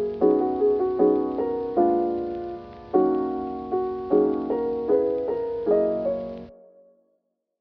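Background piano music with a slow, gentle melody of struck chords; it fades out and cuts to silence about six and a half seconds in.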